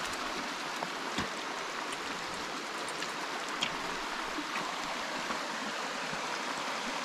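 Shallow creek rushing over rocks: a steady wash of running water, with a few faint ticks.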